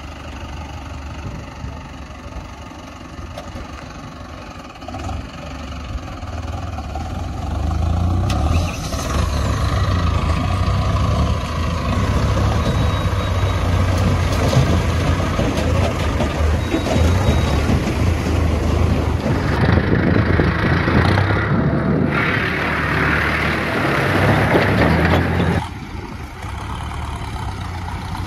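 Mahindra Arjun Novo 605 tractor's diesel engine running as the tractor drives through shallow water, with water churning around the wheels. The engine grows louder about eight seconds in, and the louder churning noise drops off suddenly near the end.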